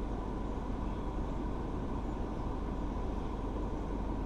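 Steady low rumble of a car running, with engine and cabin noise.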